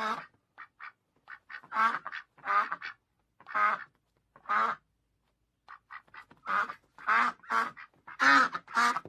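Duck quacking: short, nasal quacks in quick runs, with a pause about halfway through and the calls stopping near the end.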